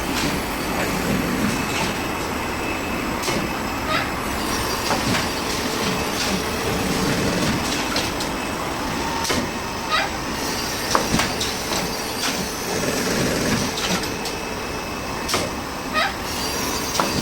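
Automatic pillowcase overlocking machine running, a steady mechanical clatter with sharp clicks every second or two.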